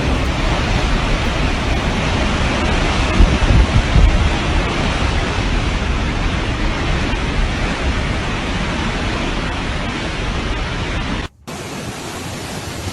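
Storm wind with rain: a loud, steady rush with gusts buffeting the microphone, strongest a few seconds in. Near the end it cuts out for a moment, then comes back a little quieter.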